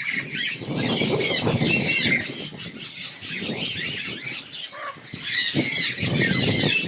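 Many caged birds squawking and calling at once, with overlapping harsh calls and a quick run of short repeated notes a couple of seconds in.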